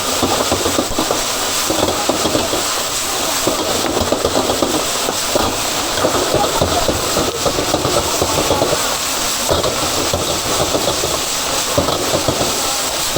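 Food sizzling and crackling in hot oil in a wok, a steady dense hiss.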